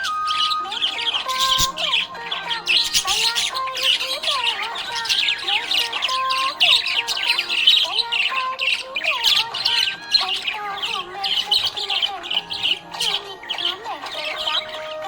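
Small pet parrots chattering and squawking continuously in quick, overlapping chirps, over soft background music with a slow melody.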